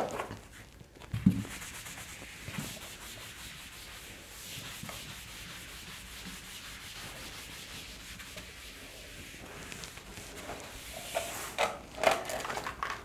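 Whiteboard duster rubbing across a whiteboard, wiping off marker writing with a steady scrubbing sound. A soft knock about a second in.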